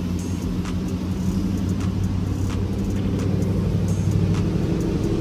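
Pickup truck's V8 engine idling steadily, a low even hum, with a few faint clicks over it.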